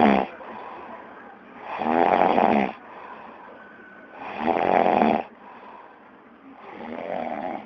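A man snoring: one snore of about a second roughly every two and a half seconds, three in all, the last one softer.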